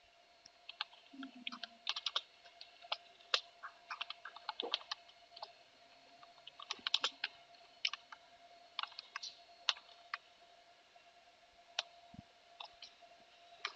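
Computer keyboard typing: irregular keystroke clicks in quick clusters with short pauses, over a faint steady hum.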